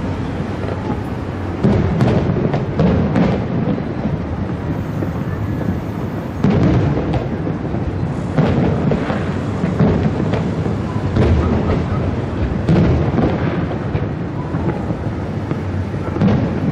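Aerial firework shells bursting one after another, each a sudden boom that trails off into a long low rumbling echo, with a new bang every second or two.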